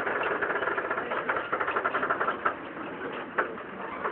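Interior of a moving tram: a steady rattling clatter of the car body and running gear. Two sharper knocks come about two and a half and three and a half seconds in, and the clatter eases a little in the second half.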